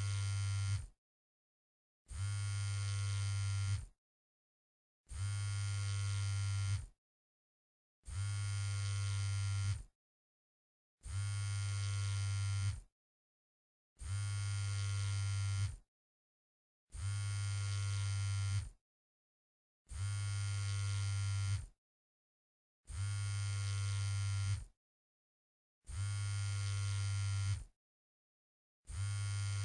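Mobile phone vibrating: a low buzz that lasts about two seconds, stops for about a second, and repeats steadily, about ten times over.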